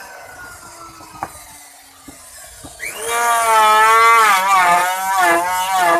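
Electric wood router winding down, with a single click, then switched on again about three seconds in: it spins up quickly to a loud, high-pitched whine whose pitch wavers and dips as the motor is loaded.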